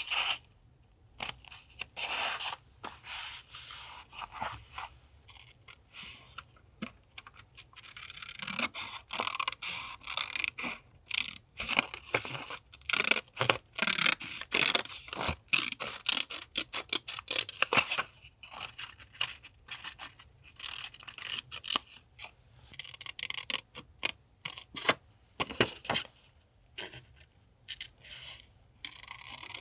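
Paper being handled for a journal collage: many short, irregular strokes of paper sliding, rubbing and being cut or torn, with brief pauses between them.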